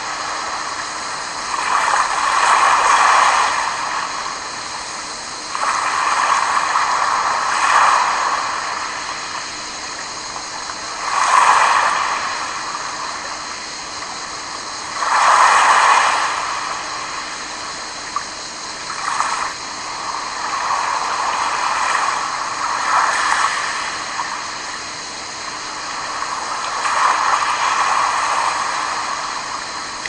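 Small sea waves washing onto a pebble beach and around rocks, a continuous rush that swells with each wave every few seconds and then ebbs.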